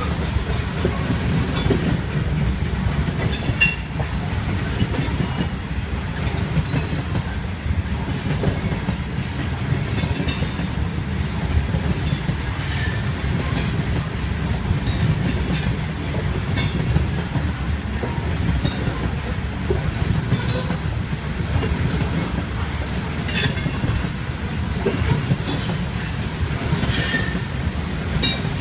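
Freight train's covered hopper cars rolling past on steel wheels: a steady low rumble, with scattered sharp clicks and rattles every few seconds.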